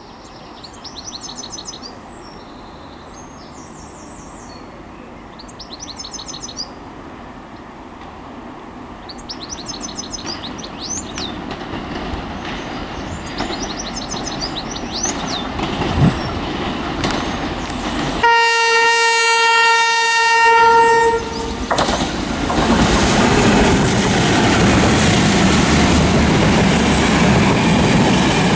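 Birds chirp while an Irish Class 201 diesel locomotive heading an Enterprise train approaches, its engine and wheel noise growing steadily louder. About 18 seconds in it sounds one long horn blast on a single note for about three seconds. Then the locomotive and its carriages run past close by, the wheels clattering on the rails.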